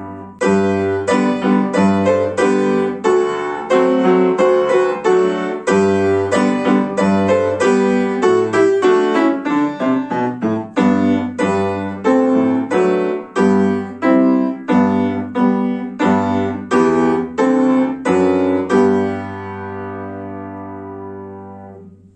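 Upright piano playing a hymn in four-part chords at a steady pace. It ends on a long held final chord that fades away.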